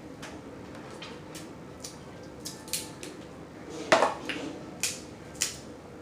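Blue crab shells being handled and broken apart by hand: a scatter of sharp clicks and cracks, the loudest about four seconds in.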